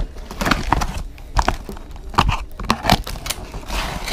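Cardboard shipping box being handled and opened on a workbench: irregular rustling and crinkling of cardboard and wrapping, with a few short knocks as it is moved about.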